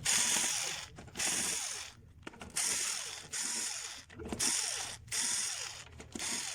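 Electrical contactor making an abnormal noise in short bursts, about one a second, each starting abruptly and fading. It is the sign of dirty contacts that need cleaning.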